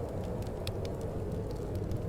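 Fireplace crackling with scattered sharp pops over a steady low wind rumble.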